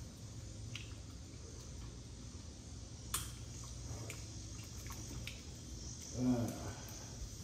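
Quiet handling of a collar on a puppy inside a crate: a few light clicks over a steady low hum, with a brief voice-like sound near the end.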